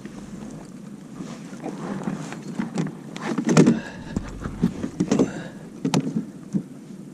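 Irregular knocks, thumps and rustling of handling in a small fishing boat, as a just-landed bass is handled for a photo and measuring. The loudest thumps come about three and a half, five and six seconds in.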